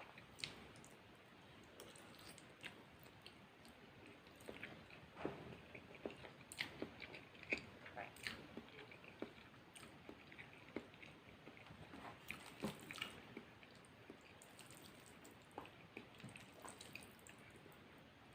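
A person chewing food close to the microphone: irregular soft, wet mouth clicks and smacks, busiest in the middle stretch.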